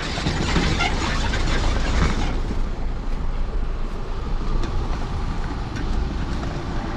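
Off-road vehicle running over a rough track: a steady low rumble with noise, which eases off a little after about two seconds.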